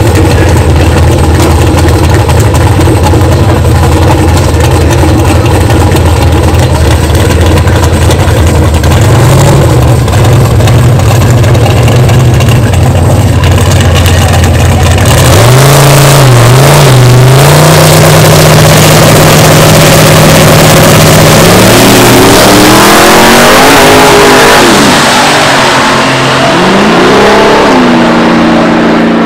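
Drag-racing cars, among them a white G-body Chevrolet Malibu on big chrome rims, idling loud and lumpy at the starting line and revving up. About fifteen seconds in they launch and accelerate hard down the strip, the engine pitch rising and dropping through the gears as they pull away.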